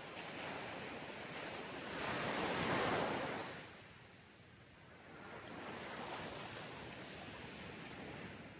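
Sea waves breaking on a sandy beach and washing up the shore; one wave swells and crashes about two seconds in, then the wash dies down before the surf builds again.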